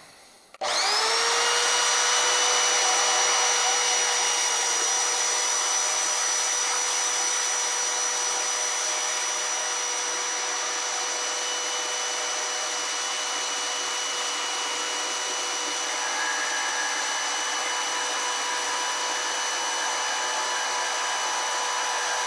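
Portable bandsaw starting up about half a second in, its motor spinning up into a steady high whine while the blade cuts through a metal bar. A further note joins the sound in the last few seconds.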